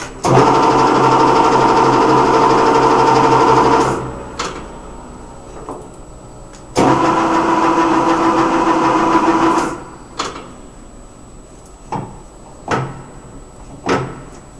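Jashone M215Ex1500 lathe running up twice, each run a few seconds of steady machine whine and ending quickly, the second at a different pitch. It is followed by a few short clunks, like levers or controls being worked.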